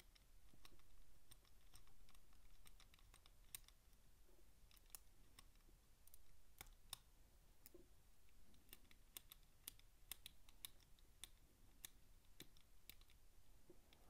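Faint, irregular clicking of a Master Lock 1178's code wheels being turned notch by notch, a few clicks a second, while a notch decoder rides along the wheels to find each wheel's deep notch.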